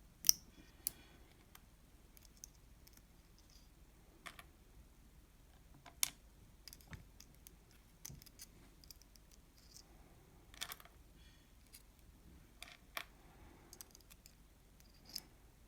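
Scattered light clicks and taps of small metal padlock parts being handled and set down while an Abloy Protec padlock is dismantled, with the sharpest click just after the start.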